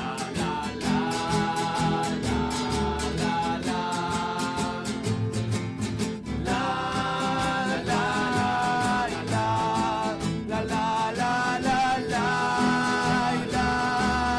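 Acoustic guitar strummed in a steady rhythm with a sung melody of long held notes over it: a live acoustic band performance.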